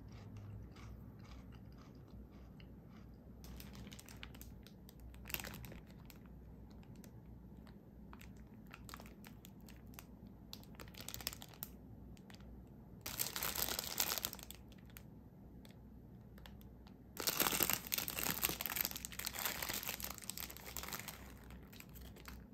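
Thin plastic bread wrapper crinkling as it is handled and turned over, with a short loud burst of crackling past the middle and a longer, louder stretch in the last third as the bag is pulled open.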